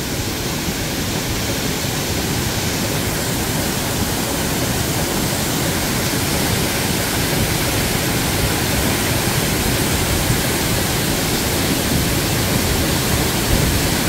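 A tall waterfall in heavy flow, about 20 m high, plunging into its pool: a steady, unbroken rush of falling and splashing water.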